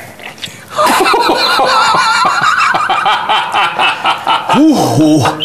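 Loud, prolonged laughing that starts about a second in, with a rising-and-falling vocal cry near the end.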